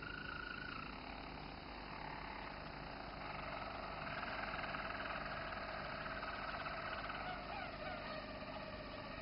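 Roller canary singing: long, low, rolling trilled notes, one tour running into the next.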